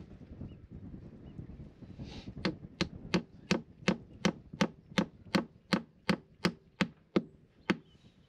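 Hammer driving a nail into the wooden hull planking of a boat. The hammering starts about two seconds in: about fifteen quick, even taps, roughly three a second.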